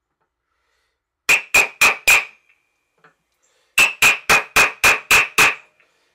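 A small hammer tapping at the wooden plane body clamped in a bench vise: four quick blows, a pause, then seven more, each with a short bright ring.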